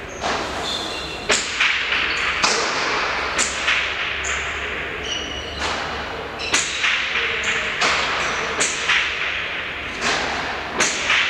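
Hard pelota ball striking the frontón's front wall and floor in a remonte rally: sharp, echoing cracks about once a second, now and then two in quick succession.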